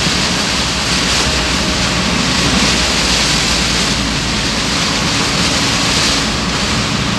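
Heavy rain and tyres on a flooded road, heard from a car driving through a downpour: a steady, even rushing noise.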